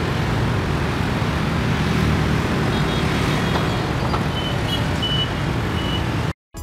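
Busy street traffic, mostly motor scooters with an electric bus going by, heard as a steady din of engines and tyres. A few short, high beeps sound in the middle, and the noise cuts off suddenly near the end.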